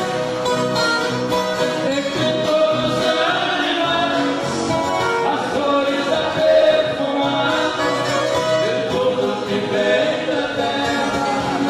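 Large ensemble of violas caipiras (ten-string Brazilian folk guitars) playing a sertanejo caipira song, with a group of voices singing together over the strings.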